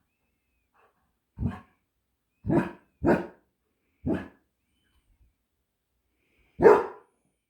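A dog barking five times in short single barks, spaced irregularly, with the loudest bark near the end.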